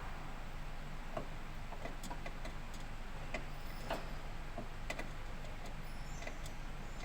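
Scattered light clicks and taps, irregularly spaced, from hands working at the headlight bulb and its plastic housing and clips, over a steady low hum.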